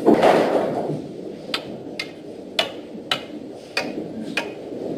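Six sharp clicks about half a second apart, after a short rush of noise that dies away in the first second.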